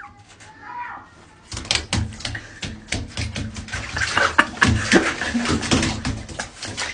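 Water splashing and running in a bathtub, setting in about a second and a half in with many sharp splashes.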